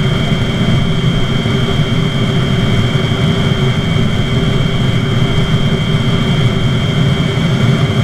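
Espar D5 hydronic diesel heater running steadily: a constant rushing burner noise with a low hum under it and a thin high whine of its blower on top.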